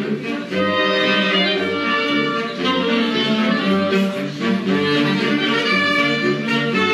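Instrumental music with sustained melodic notes over a bass note that recurs about once a second.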